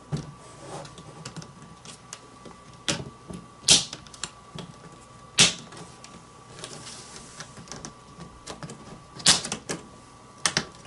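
Plastic clips of an Acer 5742Z laptop's screen bezel snapping loose as the front panel is pried off: a run of sharp snaps and smaller clicks at uneven intervals, the loudest a few seconds apart.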